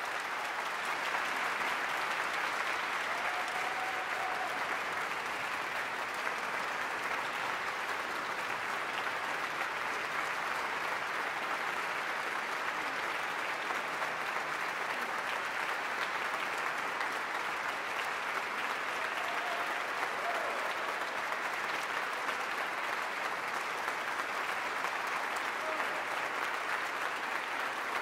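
Concert audience applauding, swelling up over the first second and then holding steady.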